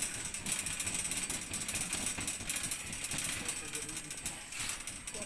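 Shopping cart rattling as it is pushed along a tiled floor: the wheels and wire basket give a steady clatter of rapid clicks.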